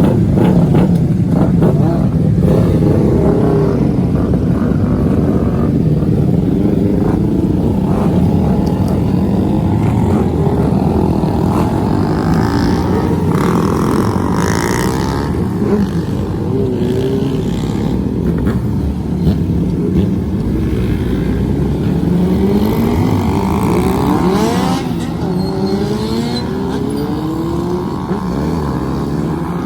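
Several motorcycle engines running and revving, their pitch rising and falling as the riders move off.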